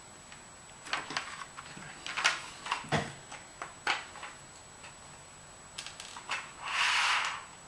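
Scattered light clicks and taps of small objects and tools being handled on a workbench, with a short scraping rustle near the end.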